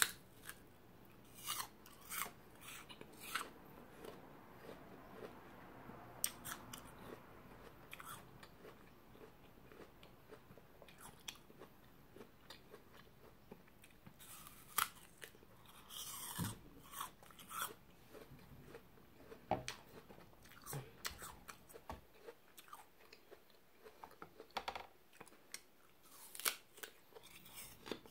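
Biting into and chewing raw apple slices close to the microphone: an irregular run of crisp crunches.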